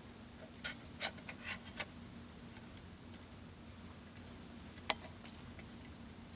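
Light clicks and taps of metal camp cups and utensils being handled: a quick run of about five in the first two seconds and one sharper click near five seconds, over a faint steady hum.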